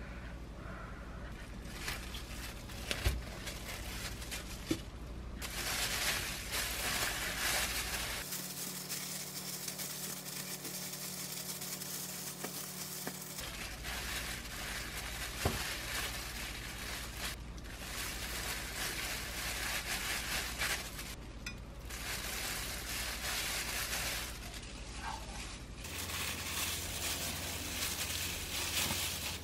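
Hands in disposable plastic gloves rustling as they handle and press kimbap ingredients and roll the seaweed sheet on a wooden cutting board, with a few light taps.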